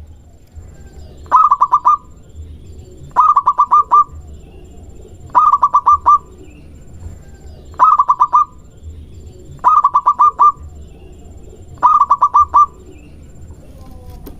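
Zebra dove (perkutut) singing: six short phrases of quick, rapidly repeated cooing notes, about two seconds apart.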